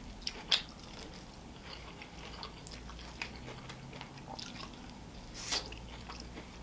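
Close-up chewing and biting of grilled Mexican street corn on the cob, with wet mouth sounds. A few sharp clicks stand out, one about half a second in and a louder one near the end.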